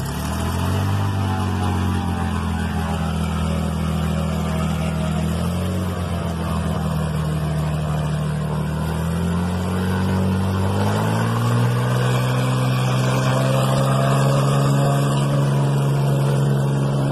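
Cessna 210's six-cylinder piston engine and propeller running as the plane taxis. The engine note dips and rises a few times, then climbs to a higher, steady pitch about eleven seconds in as power is added.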